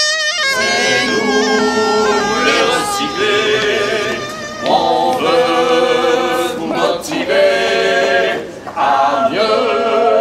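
Small group of men and women singing together a cappella in harmony, in held, chord-like phrases with short breaks between them.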